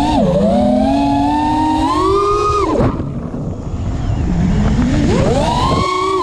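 Brushless Cobra Champion 2207 2450kv motors spinning DAL Cyclone 5045 three-blade props on a 5-inch FPV racing quad, heard from a camera on the quad. A buzzing whine climbs steadily in pitch for nearly three seconds, falls away sharply, runs lower and rougher for a second or two, then climbs again near the end.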